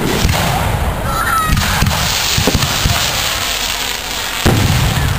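Aerial fireworks shells bursting overhead: several sharp booms, each trailing off in a low rumble, the loudest about four and a half seconds in.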